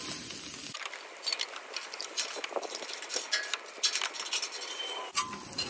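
Metal spatulas scraping, tapping and clinking against the steel cooktop of a Blackstone griddle and a stainless steel bowl as fried rice is scooped into it, in a string of short, sharp clicks. A faint sizzle is heard under it for about the first second.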